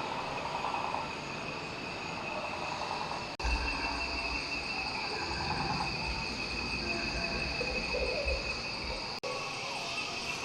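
Outdoor night ambience with a steady high chirring of crickets and other insects, over a low rumble. The sound drops out for an instant about three and a half seconds in and again about nine seconds in, and the low rumble stops at the second break.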